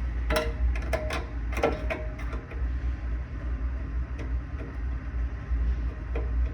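Clicks and knocks of metal furnace parts being handled and fitted back in place, mostly in the first couple of seconds, over a steady low rumble.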